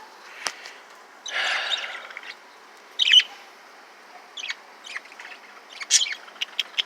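Several caged pet birds chirping with short, scattered high calls, and one longer, harsher squawk about a second and a half in.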